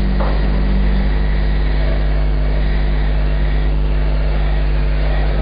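A steady, unchanging low electrical hum with hiss.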